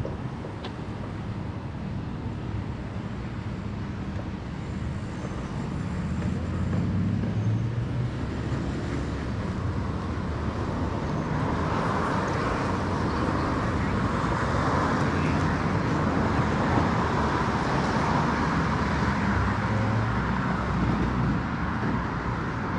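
Road traffic on a city street: engines and tyres of passing cars and other vehicles, a steady rumble and hiss that grows louder from about halfway in as traffic passes close.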